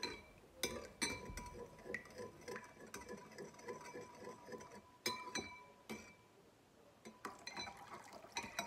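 Metal spoon stirring tomato paste sauce in a ceramic bowl, ticking and clinking against the bowl's sides with a few louder knocks, as the paste is worked loose. It goes quiet for a moment about six seconds in; near the end water starts pouring in from a glass jug.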